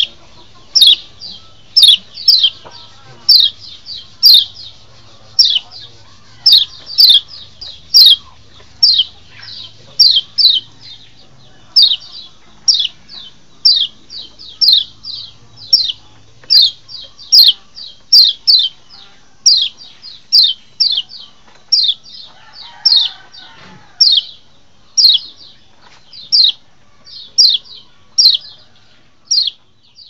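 White-eye (kecial lombok) calling in a long rapid series of short, high chirps, each sliding sharply downward, about two a second and often in quick pairs or threes.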